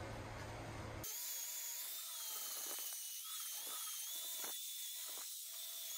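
Handheld angle grinder grinding the cut ends of a steel motorcycle frame tube straight, starting about a second in. A steady high whine over the hiss of the grinding, its pitch wavering slightly as the disc bites.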